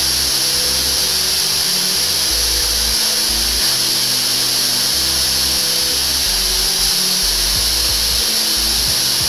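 Oxyhydrogen (HHO) welding torch flame, fed with compressed air, hissing loudly and steadily.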